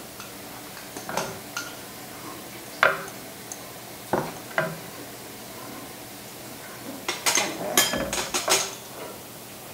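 Metal spoons clinking and tapping against spice jars, measuring spoons and a stainless steel pot as spices are measured and the soup is stirred: a few separate clinks, then a quick run of clatter near the end.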